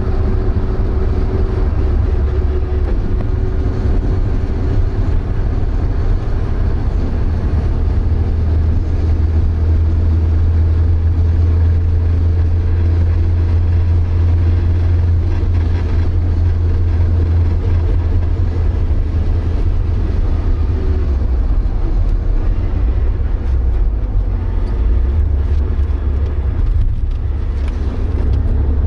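Cabin noise inside a Porsche 924 race car: its 2.0-litre four-cylinder engine running at a fairly steady speed as a low drone, with road and wind noise over it.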